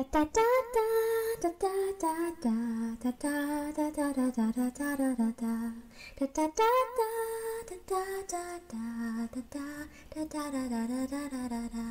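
Intro music: a woman singing a slow melody in long held notes, with light percussive clicks under it, cutting off at the end.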